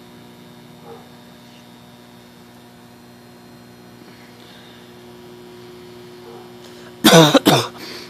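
Steady electrical hum of a microwave oven left running, a low buzz with several steady overtones. About seven seconds in, a person's loud voice breaks in.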